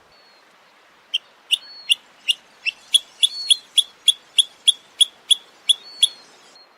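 A shorebird giving a run of short, sharp calls, about three a second, starting about a second in and stopping shortly before the end. A few faint, thin drawn-out whistles sound between them.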